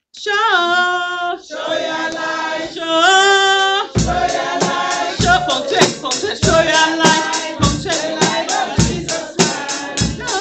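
Gospel music: voices sing long, gliding held notes, and about four seconds in a steady drum beat starts under the singing.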